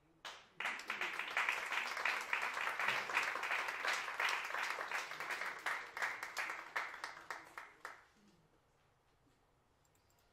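Audience applauding at the end of a choro piece. The applause starts about half a second in and dies away by about eight seconds.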